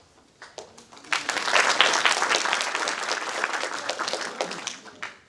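Audience applauding. A few scattered claps start it, it swells to full clapping about a second in, and it fades away near the end.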